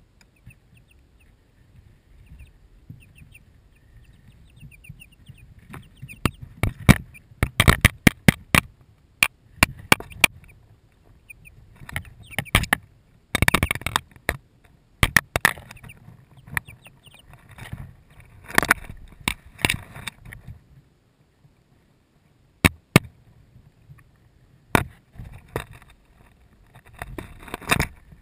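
Light Sussex chicks bumping and pecking at a camera in their brood box: irregular sharp taps, knocks and scrapes on the microphone, with a few faint chick peeps.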